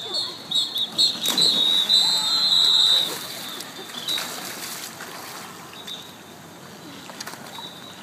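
Lifeguards' whistles blowing together in long, wavering blasts at the pool's closing time. They stop about three seconds in.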